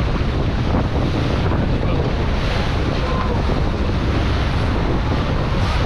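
Steady wind buffeting the microphone over the rush of sea water and a running boat, on a fishing boat under way.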